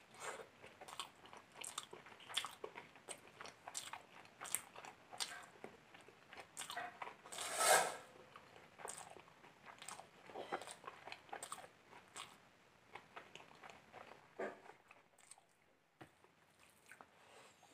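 Close-miked chewing of biryani and a fried chicken chop eaten by hand: wet mouth clicks, smacks and crunching, with one louder burst about halfway through, then fewer sounds toward the end.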